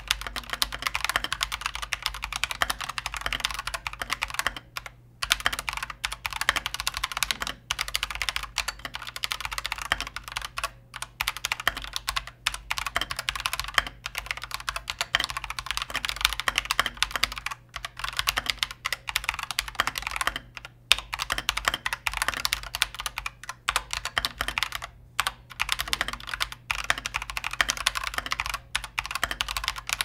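Typing on an Akko 3098S 98% mechanical keyboard: a steady, fast run of keystrokes, with short pauses between bursts of typing.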